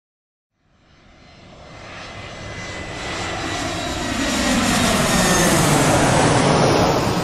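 Jet aircraft fading in from silence and growing steadily louder as it approaches: a thin, steady high whine over a rushing noise whose lower part slides down in pitch, holding at full loudness near the end.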